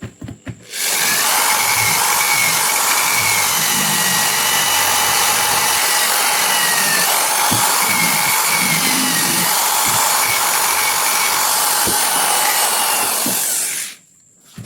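A power tool running steadily for about thirteen seconds: a loud hissing noise with a faint wavering whine. It starts about a second in and cuts off near the end.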